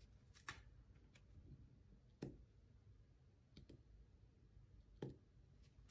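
Near silence broken by four faint, scattered clicks as a weeding hook picks masking off a laser-cut plywood ornament.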